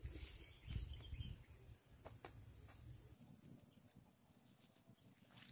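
Faint riverside ambience: scattered high bird chirps over a steady high-pitched insect drone that cuts off about three seconds in, with a faint low rumble.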